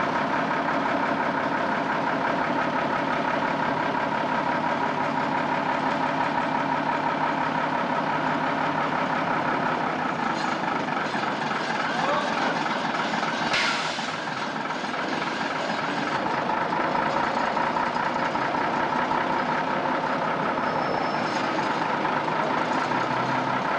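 Heavy diesel engine of a recovery truck running steadily with a double-decker bus in tow. There is a brief hiss about halfway through.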